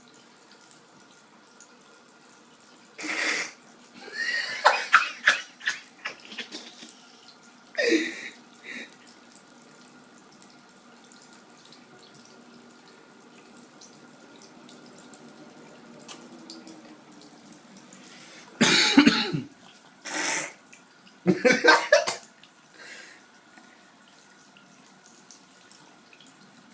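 A person clearing his throat in rasping bursts with pauses between, the loudest run about two-thirds of the way in, over faint running water from a sink tap.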